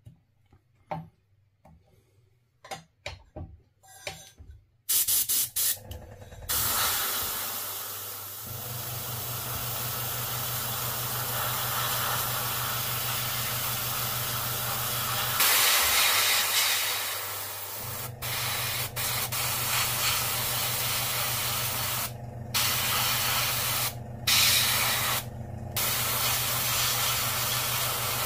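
Airbrush spraying paint onto a small crankbait lure: a steady hiss of air and paint, cut off briefly a few times near the end as the trigger is let go, over a low steady hum. A few small clicks and taps come before the spraying starts.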